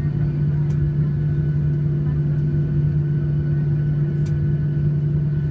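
Cabin noise of a Boeing 737-800 taxiing. The CFM56-7B engines at taxi power and the cabin air make a steady drone with a strong low hum, over a low rumble from the taxiway.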